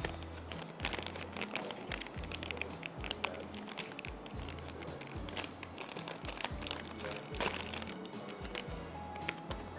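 A cornflour packet crinkling and rustling as it is handled, opened and tipped out, with many small sharp crackles, over background music with a steady low beat.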